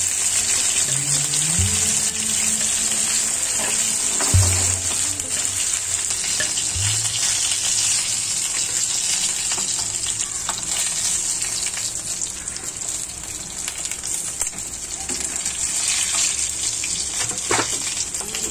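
Masala-coated fish pieces shallow-frying in hot oil in a pan, sizzling steadily. A spatula knocks against the pan a couple of times.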